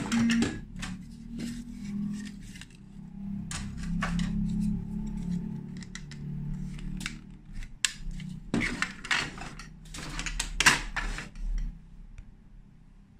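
Plastic Lego Duplo bricks being handled: scattered clicks and knocks as pieces are turned, pressed together and set down, with a quick run of clattering about nine to eleven seconds in.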